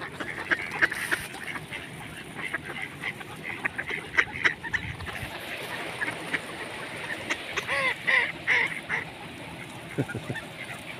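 A flock of mallards quacking and calling in short, scattered calls, with a cluster of louder quacks about eight seconds in.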